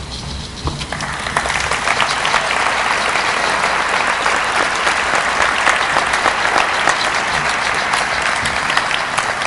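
Audience applauding. The clapping swells about a second in and then holds at a steady, full level.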